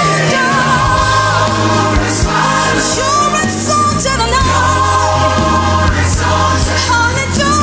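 Gospel choir singing a worship song with band accompaniment and a steady bass line.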